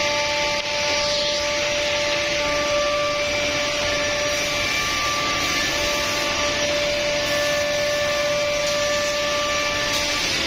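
Holztek CNC nesting router running on panel stock: a steady hiss with thin whining tones of its spindle that come and go.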